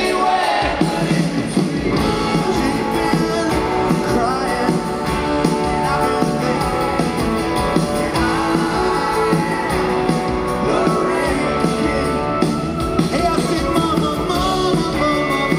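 Live rock band playing a mid-tempo song in a large arena, with a male lead vocal over drums, acoustic guitar and electric guitars.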